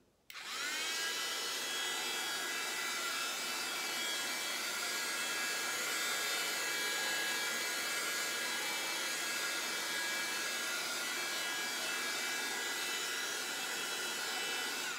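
Electric heat gun switched on, its fan whining up to speed with a brief rising pitch, then running steadily: a blowing rush with a high, steady whine, until it stops at the very end. It is being played over wet acrylic paint to burst the air bubbles in it.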